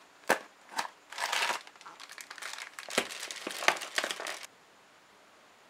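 Two sharp clicks from the small cardboard toy box being opened, then a clear plastic bag crinkling as it is handled, stopping suddenly about four and a half seconds in.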